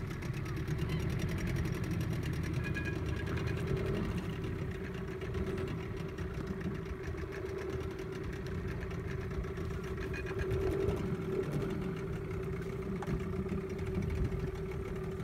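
Boat engine running steadily at low revs: a constant low rumble with a steady hum above it.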